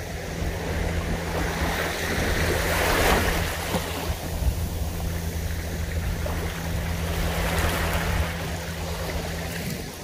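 Small waves washing up over a sandy beach and draining back, the wash swelling about three seconds in and again near eight seconds. A steady low hum runs underneath and stops just before the end.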